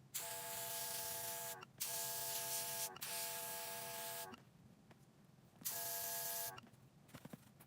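Airbrush compressor motor humming while air hisses out of the airbrush. It comes in four bursts of roughly one to one and a half seconds each, starting and stopping sharply as the trigger is pressed and released.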